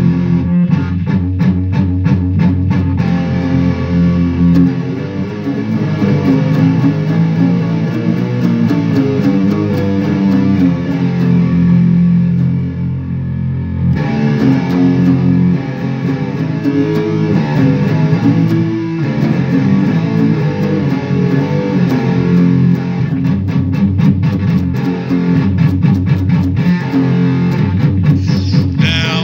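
Electric guitar playing an instrumental rock piece: held low notes, with stretches of fast picking near the start and again in the last few seconds.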